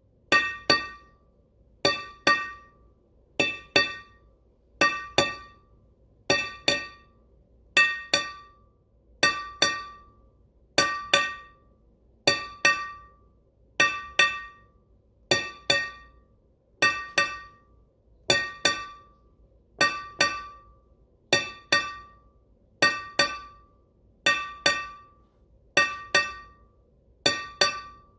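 Earthquake alert tone: a pair of sharp, bell-like chimes, each ringing briefly on several pitches, repeated about every second and a half.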